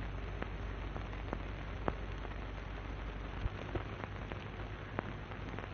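Surface noise of an early-1930s optical film soundtrack: a steady hiss over a low hum, with scattered clicks and pops about once a second. No speech or music.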